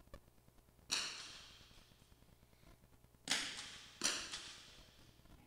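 .22 long rifle single-shot smallbore target rifles firing sighting shots: three sharp cracks, one about a second in and two more in quick succession later, each trailing off in echo.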